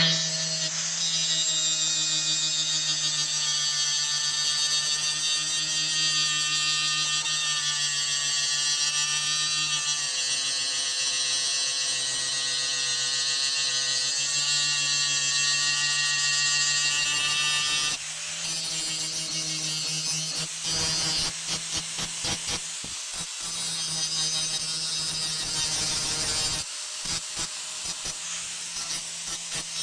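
Angle grinder running with its abrasive disc grinding the steel of a rusty axe head: a steady motor whine over a harsh, hissing grind. In the last third the grinding repeatedly breaks off and resumes.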